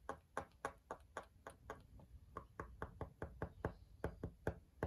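Pen writing on a planner page laid on a hard desk board: a quick run of light taps, about four or five a second.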